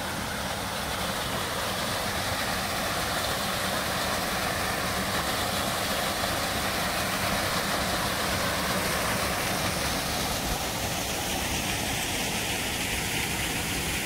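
Steady rushing of water from a small waterfall pouring into a rock-walled canyon pool and the shallow stream below it.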